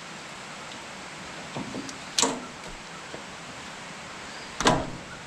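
Two sharp metallic knocks, about two and a half seconds apart, the second louder and briefly ringing. They come from a cotter pin being tapped out of a corn picker's husking-bed shaft.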